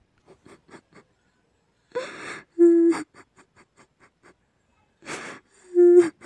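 A person crying in sobs: twice a sharp gasping breath in, each followed by a short wailing cry, with faint catches of breath between.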